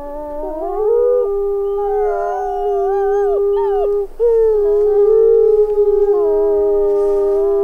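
A pack of wolves howling in chorus: several long howls overlap at different pitches, some held steady and some gliding up and down. About four seconds in, one voice briefly drops out before a howl starts again.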